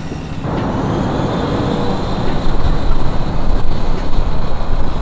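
Simulated truck engine rumble played through the onboard Sony SRS-XB10 speakers of an RC Ford Super Duty truck as it drives; it gets louder and more uneven about halfway through.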